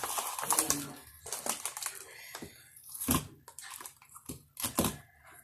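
Scattered clicks and knocks of objects being handled, a few seconds apart, with faint voices in the first second.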